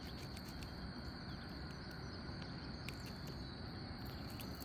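Insects chirring steadily at one high pitch over a faint outdoor hush, with a few faint scattered clicks.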